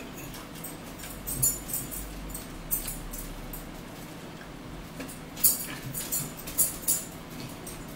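Metal forks clicking and scraping against plates and bowls of salad, in short clusters of sharp clinks about a second in, near three seconds and again from about five to seven seconds.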